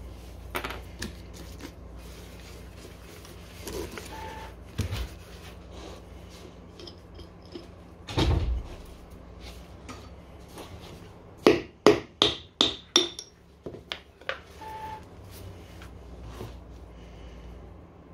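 Workshop handling of metal tools and scooter motor parts: scattered clicks and knocks, a heavy thump about eight seconds in, then a quick run of about six sharp metallic strikes that ring briefly.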